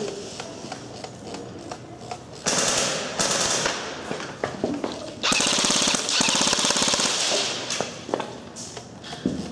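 Airsoft guns firing on full auto: two long rapid bursts, the first about two and a half seconds in and a longer one about five seconds in, with scattered single clicks and pops around them.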